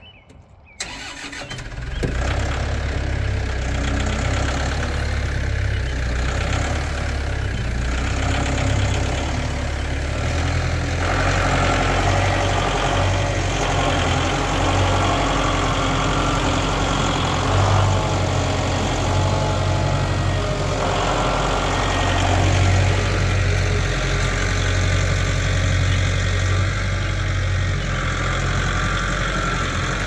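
Massey Ferguson compact tractor's diesel engine starting about a second in, then running steadily, its note changing as the tractor drives forward with the loader forks.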